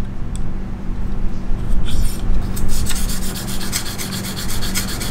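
1,500-grit diamond hone on a KME guided-rod sharpener rasping along a steel knife edge with light pressure: a few strokes, then quick, even back-and-forth strokes, several a second, from about halfway through.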